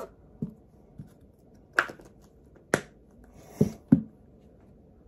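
Small plastic baby bottles being handled: a string of sharp plastic clicks and knocks, about seven in all, with two knocks close together near the end as the bottles are set down.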